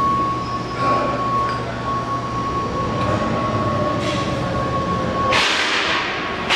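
Large Nishimori engine lathe running, with a steady high whine and a low hum under gear noise. About five seconds in, the whine stops and a sudden loud hiss takes over.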